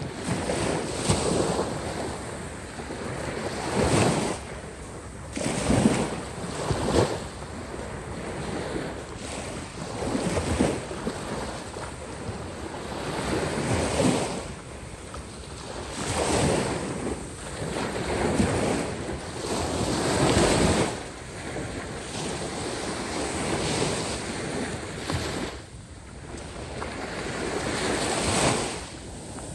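Waves breaking and washing on the Caspian Sea shore in uneven surges every few seconds, with wind buffeting the microphone.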